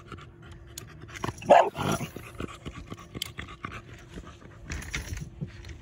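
Fishing reel being cranked to bring the lure back in, a fast run of small clicks, with a loud breathy huff about one and a half seconds in and a softer one near the end.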